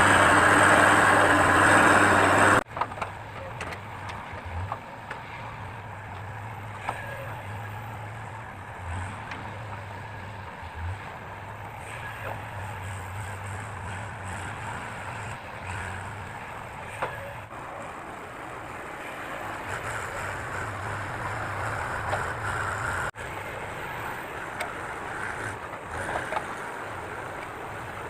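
Diesel engine of heavy earthmoving equipment running steadily at a distance, with scattered faint knocks. A louder noisier stretch at the start cuts off abruptly a couple of seconds in.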